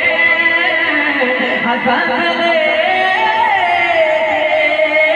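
A man singing a naat into a microphone in a long ornamented melisma without words. The note wavers and, about three seconds in, glides down to a lower held pitch.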